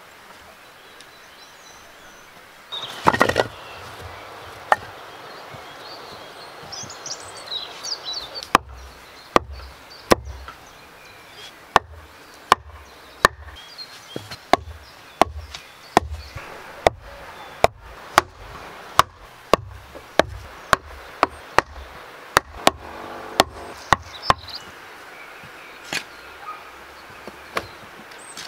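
A shovel blade scraping and jabbing into dry earth about three seconds in. Then a long run of sharp wooden knocks, roughly two a second for about fifteen seconds, each with a dull thud, as split wooden stakes are struck into the ground.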